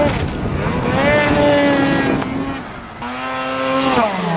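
Snowmobile engines revving hard, the pitch climbing and falling as the throttle is worked. About three seconds in, the sound cuts to another snowmobile revving.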